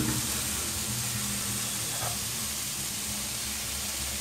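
Sliced vegetables sizzling with a steady hiss in a hot pot as strips of omelette are added, over a low steady hum.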